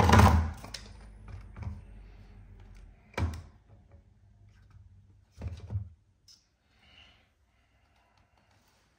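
Dull handling thumps and knocks: a heavy thump right at the start, then a sharp knock about three seconds in and a couple more about five and a half seconds in, with faint movement afterwards.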